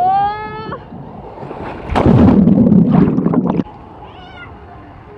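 A girl's high squeal rising in pitch, then a loud rushing noise about two seconds in, lasting about a second and a half, and a short high cry near the end.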